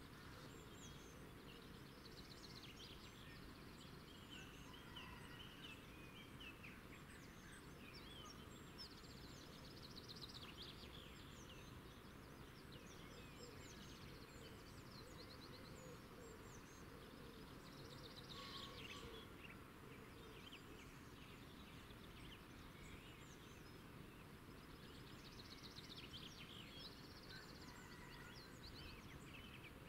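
Faint outdoor ambience: small birds chirping and twittering on and off, with quick trills, over a low steady background hiss.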